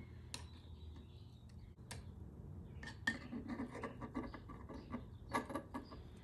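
Replacement Xbox One analog joystick module being pressed and worked into place on the controller's circuit board: a few sharp clicks, then two bursts of rapid small ticks and scratching of hard plastic and metal pins, the second about five seconds in.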